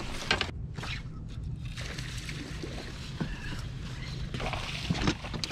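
Bass boat sitting on the water: a low steady hum with light water sloshing against the hull, and a few small clicks and knocks near the end.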